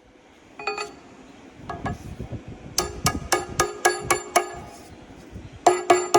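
Hammer blows on steel, each ringing metallically, as a bearing race is hammered in the combine's final drive housing: a couple of single blows, then runs of quick, even strikes at about four a second.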